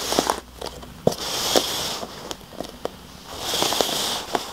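Upturned cups being slid and shuffled across a carpet by hand: two hissing scrapes about a second long, with light knocks as the cups are set down and lifted.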